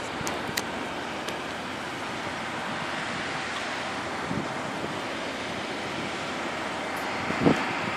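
New Holland TX34 combine harvester running while harvesting wheat, heard from across the field as a steady, even noise, mixed with wind on the microphone. A couple of short clicks near the start and a short knock near the end.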